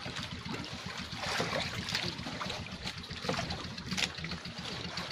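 Seawater splashing and trickling off a wet fishing net as it is hauled hand over hand into an outrigger boat, in irregular splashes over a steady low rumble.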